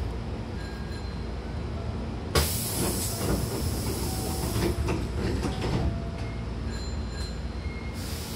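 Hankyu train's sliding passenger doors closing. A sudden loud hiss of air starts about two seconds in, with a sharp knock at its onset and further knocks as the doors slide shut, over a steady low hum from the stopped train. Another hiss starts near the end.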